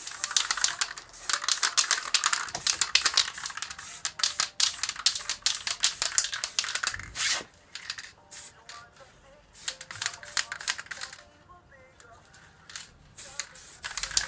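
Aerosol spray-paint can hissing in many short, uneven bursts with brief gaps, as black paint is sprayed onto a metal moped frame; faint music plays underneath.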